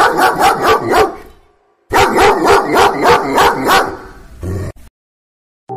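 A dog barking rapidly, about five barks a second, in two runs of nearly two seconds each with a short pause between them; a brief, shorter sound follows.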